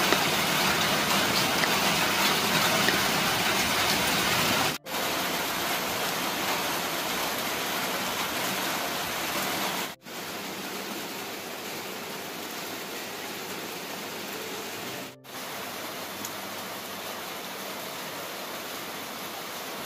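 Steady rain, an even hiss, broken into four sections by abrupt cuts about every five seconds, each section a little quieter than the one before.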